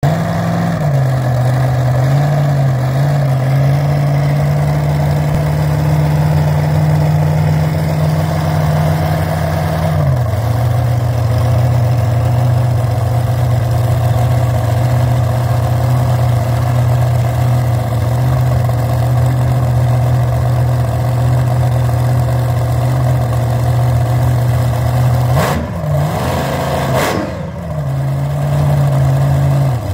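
Vintage front-engine dragster's engine idling steadily, its pitch settling a little lower about a third of the way in. Near the end come two quick throttle blips before it drops back to idle.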